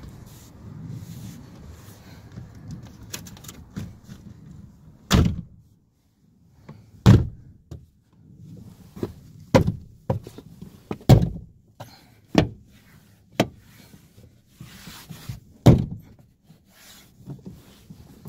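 Plastic door trim panel of a Kia Sedona sliding door being struck by hand to snap its retaining clips into the door, giving about ten sharp thunks at uneven intervals from about five seconds in. Before them there is quieter rustling as the panel is handled.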